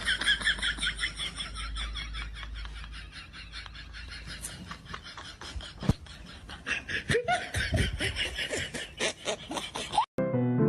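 Laughter in a long run of quick, repeated bursts, with a few higher vocal swoops in the later part. It breaks off near the end, and piano music starts.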